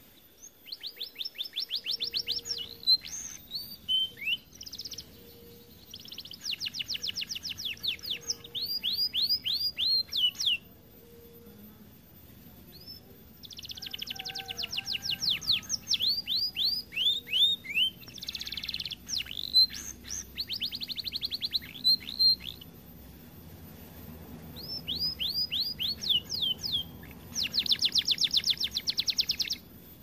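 Domestic canary singing in long phrases of fast trills, each a rapid run of repeated high notes sweeping downward, with short pauses between phrases.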